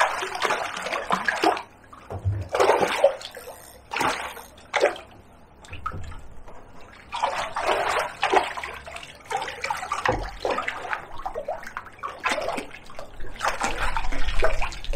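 Water splashing and sloshing in irregular bursts as a hooked mullet is landed in a net at the water's edge.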